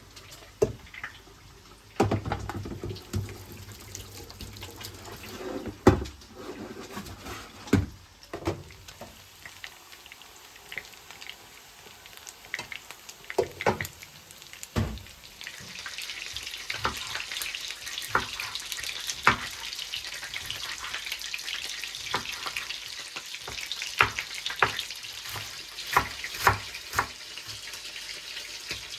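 Kitchen work sounds: scattered clicks and knocks of utensils and cookware, then a steady hiss that starts about halfway through, with the clinks carrying on over it.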